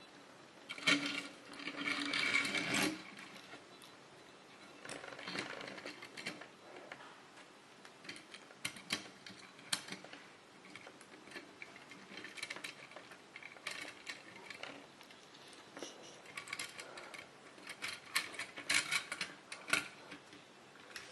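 Small plastic toy trucks and cars being handled and moved about, giving irregular clicks and rattles. A denser buzzing rattle runs from about one to three seconds in.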